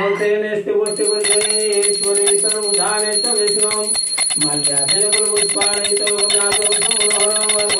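A puja bell rung rapidly and continuously, starting about a second in and carrying on to the end, over a man chanting.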